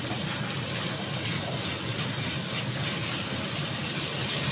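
Chopped meat and dried white radish sizzling steadily in oil in a frying pan as they are stir-fried with a silicone spatula.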